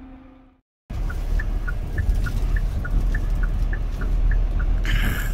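Truck engine and road rumble heard inside the cab while driving, starting abruptly about a second in, with a regular series of short high chirps, about three a second, alternating between two pitches. A short hiss comes near the end.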